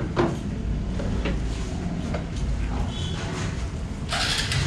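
Motorcycle engine idling with a steady low hum, with a few faint clicks and a short hiss near the end.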